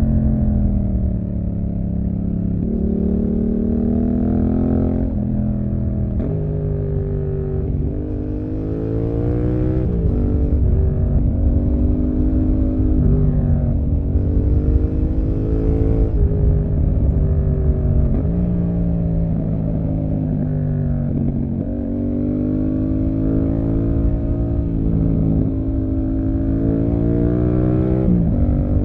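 Yamaha MT-07's parallel-twin engine through an SC-Project exhaust, heard on board while the bike is ridden hard. The engine pitch climbs and falls again and again, with a sudden drop every few seconds as the rider shifts or rolls off the throttle.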